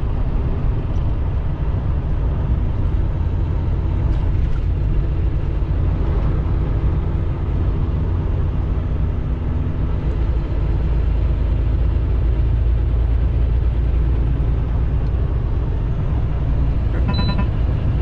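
Semi-truck engine and road noise heard inside the cab while driving: a steady low rumble, with a short beep-like tone near the end.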